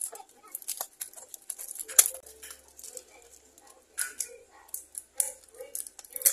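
White plastic tofu tub being handled on a cutting board: its film lid is peeled back and the tub is pressed, giving irregular plastic crinkling and clicks, with one sharp click about two seconds in.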